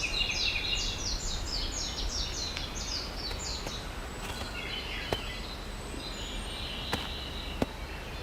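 Forest ambience with a bird singing a quick run of short, high, falling notes for the first few seconds, followed by softer chattering calls. Several sharp single taps come later, spaced about a second apart.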